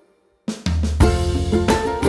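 Background music with a drum kit and plucked strings. It starts again after about half a second of silence, with a heavy drum hit about a second in.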